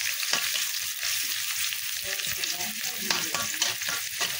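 Sliced onions sizzling in hot oil in a metal karahi, being browned, with a metal spatula scraping and knocking against the pan as they are stirred.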